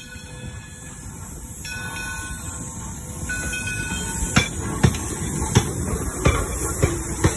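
Detroit & Lima Northern No. 7 steam locomotive rolling past close by with its cars, a rumble growing louder as it nears. Faint high tones come and go in the first few seconds, then sharp clicks recur about every two-thirds of a second as the wheels cross the rail joints.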